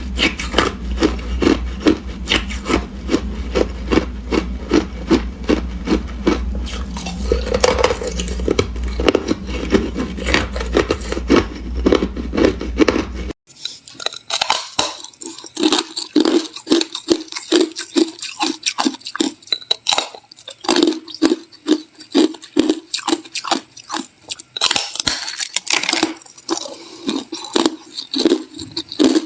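Ice being chewed close to the microphone: a steady run of sharp crunches, about two to three a second. About thirteen seconds in, a low background hum stops abruptly and the crunching goes on over a quieter background.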